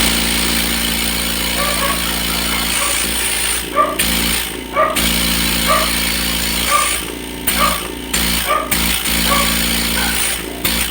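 Oil-free dental air compressor running after its piston seal has been replaced, a steady motor hum with hiss, switched on suddenly at the start; the test run of the repaired unit.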